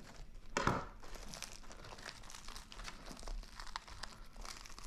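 Crisp crust of an oven-toasted hoagie roll crackling as it is handled. One louder crunch comes about half a second in, followed by scattered light crackles.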